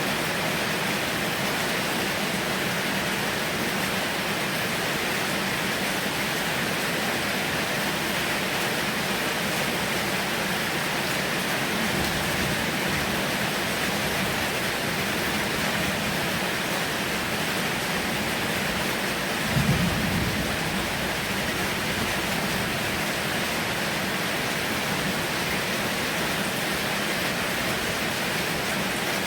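Heavy rain falling steadily, with a brief low rumble of thunder about twenty seconds in.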